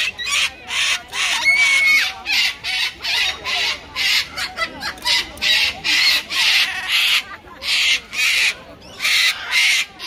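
Cockatoos screeching harshly over and over, about two screeches a second, as two birds squabble.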